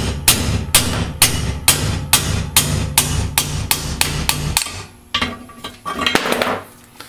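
Hammer striking a bushing driver in quick, even blows, about three to four a second, driving the old case bushing out of a Turbo 400 (TH400) transmission case. The hammering stops about four and a half seconds in, followed by a few lighter knocks as the driver is handled.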